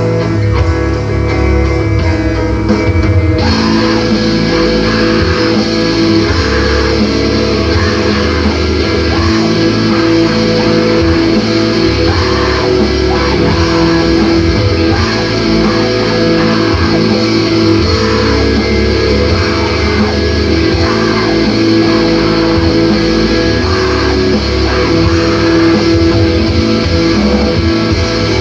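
Emoviolence/screamo band recording, a guitar-driven passage; about three and a half seconds in the sound turns suddenly fuller and brighter as the band comes in at full force.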